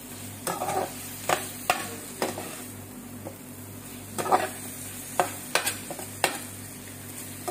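Slotted metal spoon scraping and clacking against a metal frying pan as chicken pieces and sliced vegetables are turned in a sauce, in irregular strokes every half second to a second, over a faint sizzle.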